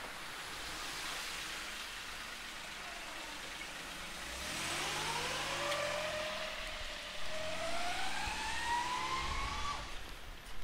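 A vehicle accelerating, its motor whine rising steadily in pitch for about five seconds and then cutting off suddenly, over a steady street hum.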